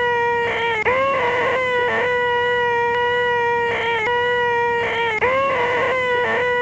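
A man's nasal, high-pitched 'eeeeh' screech, the 'most annoying sound in the world', held on one pitch and looped. It breaks off and starts again with a scoop up in pitch about a second in and again about five seconds in.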